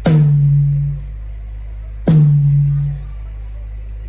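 Large outdoor PA sound system playing a single low drum hit, repeated twice about two seconds apart, as a sound check. Each hit starts sharply and rings as a low tone for about a second. A steady low hum runs underneath.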